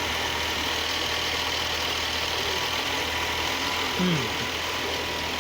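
BMW N55 turbocharged inline-six engine idling steadily.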